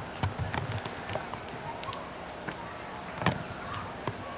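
Camcorder handling noise: scattered sharp clicks and knocks from a handheld VHS camcorder being moved about, a cluster just after the start and the loudest about three seconds in, over a faint steady background hum.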